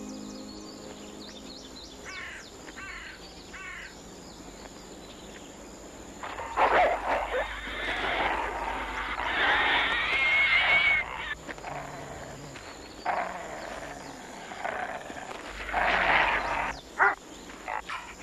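Wolves snarling and growling as they scuffle, in several loud rough bouts beginning about six seconds in, with a wavering high-pitched whine in the middle.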